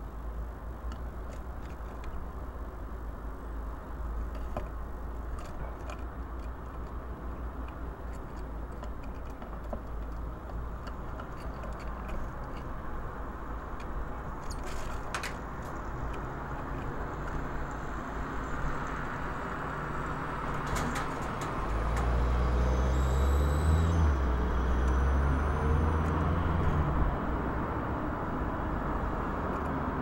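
Steady road-traffic rumble, with a louder vehicle passing about two-thirds of the way through, its engine drone swelling for a few seconds and then easing.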